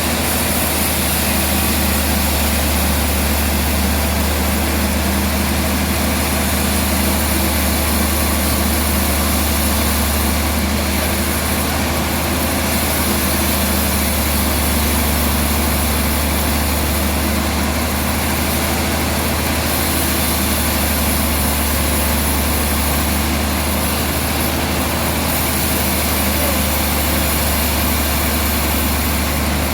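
Sawmill machinery running steadily, a heavy, even motor hum with a constant rushing noise over it.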